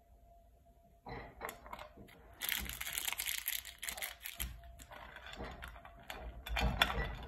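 Chocolate bar pieces snapping, then a foil chocolate wrapper crinkling and being crumpled by hand. Near the end, chocolate pieces clatter onto a plate.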